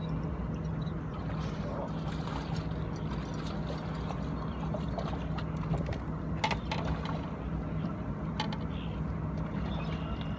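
Boat motor running steadily with a low hum, with water noise around the hull and a few sharp clicks about six and a half and eight and a half seconds in.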